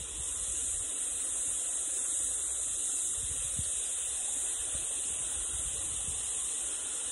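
Steady high-pitched chorus of cicadas droning without a break, with a faint low rumble on the microphone beneath.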